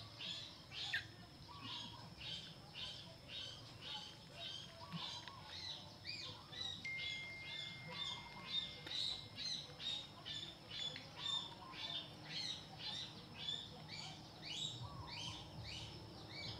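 A small bird chirping over and over, short high falling chirps about two or three a second, steady throughout.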